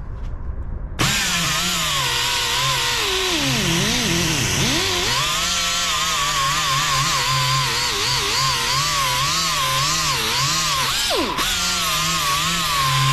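Pneumatic die grinder running on shop air: it starts suddenly about a second in and whines at a wavering pitch. The pitch sags a few seconds in, and it drops out for an instant near the end before running on.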